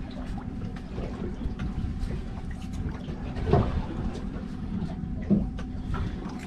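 Boat engine running steadily, a low hum under a rumbling background, with a few short knocks about halfway through and again a little later.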